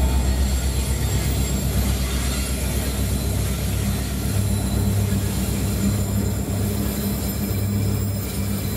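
Empty iron ore wagons rolling past on the main line: a steady low rumble and hum of steel wheels on rail.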